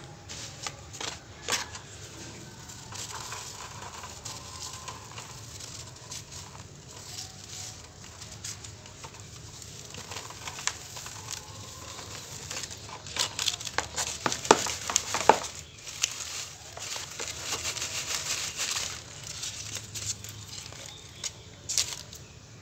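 Dry cement lumps crumbling and crunching in the hand, with grit and small gravelly pieces pattering down onto a wire mesh screen and plastic basket. The crunching and trickling is busiest and loudest through the middle.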